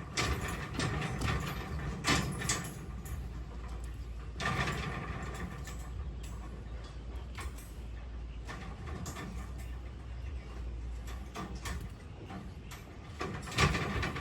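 Construction work noise: a steady low rumble with irregular clicks, clanks and scrapes of tools and materials, busiest near the start, about four seconds in and near the end.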